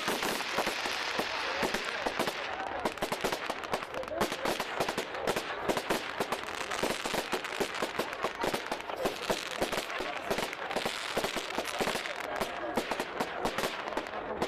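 Fireworks going off in rapid, dense crackling bangs, many a second without a break, over voices of the crowd.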